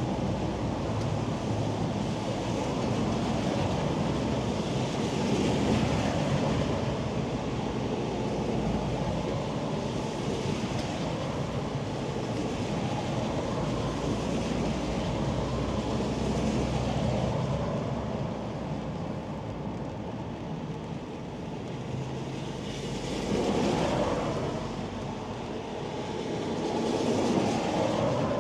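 Mobility scooter driving in the rain under its canopy: a steady rushing of rain and wet-road noise that swells louder twice near the end.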